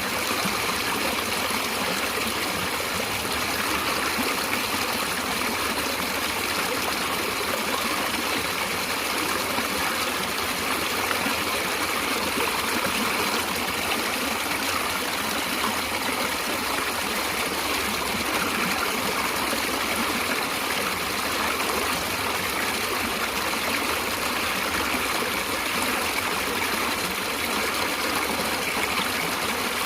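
Natural running water flowing steadily, an even, unbroken rush and trickle.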